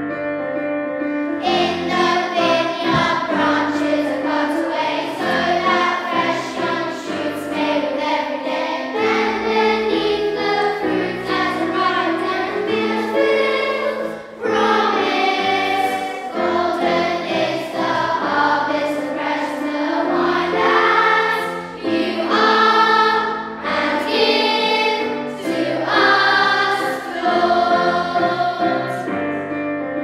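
A children's choir singing a song, with short breaks between phrases about halfway through and again a little later.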